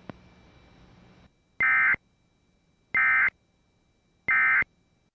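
Emergency Alert System end-of-message tones: three identical short bursts of buzzing two-tone digital data, about a second apart, signalling that the warning broadcast has ended.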